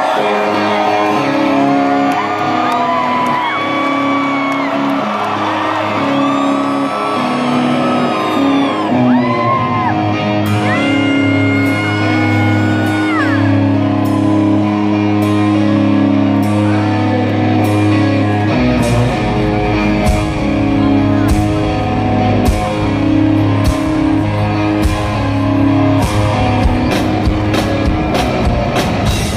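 Live rock band opening a song with sustained electric guitar chords while the crowd whoops. About 18 seconds in, the bass and drums come in with a steady beat.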